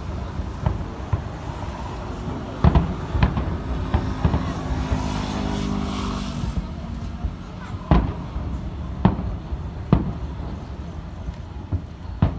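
Display fireworks shells bursting in the distance: sharp booms at uneven intervals of about half a second to a few seconds, over a steady low rumble.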